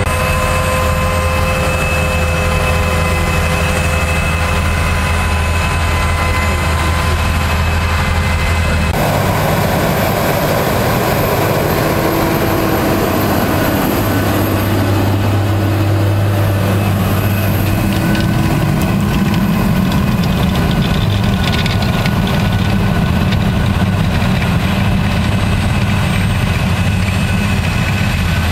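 Diesel engines of Claas tractors running steadily under load as they pull Lemken ploughs and cultivation implements through the soil. The sound changes abruptly about nine seconds in.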